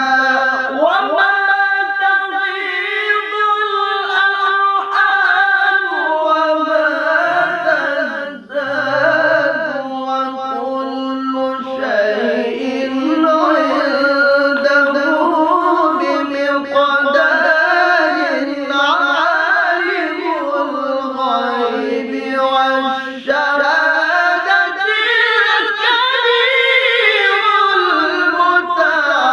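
Two men's voices singing an unaccompanied, melismatic Arabic-style chant in the manner of Quran reciters (qori), long held notes winding slowly up and down with fine ornaments. There is a short breath break about eight seconds in.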